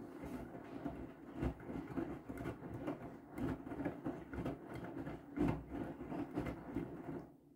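Whirlpool FreshCare+ front-loading washing machine drum tumbling a wet load of laundry. Clothes and water slosh and rustle, with a heavy thud about every two seconds as the load drops. The drum stops near the end, leaving a faint hum.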